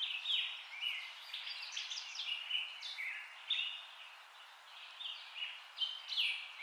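Birds chirping and singing: a steady run of short, quick notes, many of them dropping in pitch, over a faint hiss.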